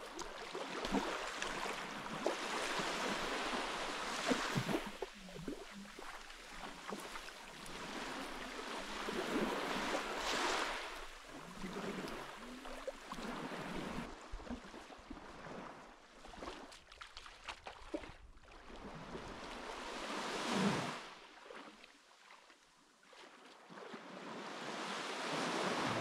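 Sea waves breaking and washing up on the beach, rising and falling in surges several seconds apart; the loudest comes about twenty seconds in.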